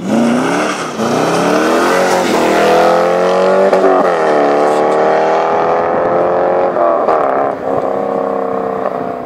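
American V8 sports car accelerating hard through the gears. The engine's pitch climbs in each gear and drops at each of several upshifts.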